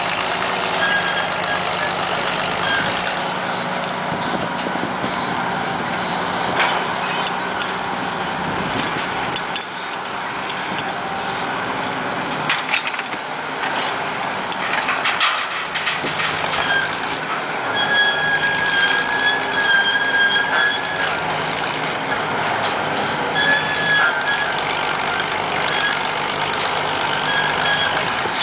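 Vintage Bay City cable crane working a clamshell bucket: its engine runs steadily under load, with clanks and intermittent high-pitched squeals from the machinery as the bucket is hoisted and swung.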